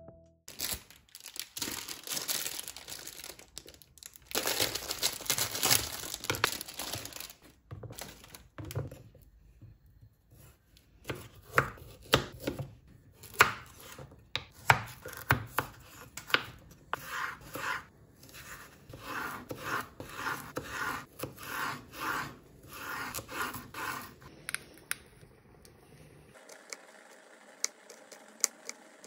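Kitchen knife cutting carrots on a wooden cutting board: rough scraping and rustling for the first several seconds, then a run of sharp knocks of the blade on the board, about two a second in the middle stretch. Near the end, fainter, lighter knocks as garlic is minced.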